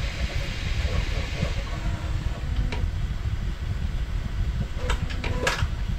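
3D printer running: a steady fan rush with faint motor tones under it. The hiss dies away about a second and a half in, and there is a single click near the middle and a short cluster of clicks near the end.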